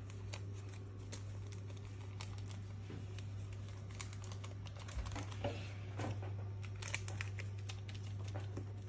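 Faint, scattered small clicks and crinkles of hands handling small bits and a paper sachet over a mixing bowl, over a steady low hum.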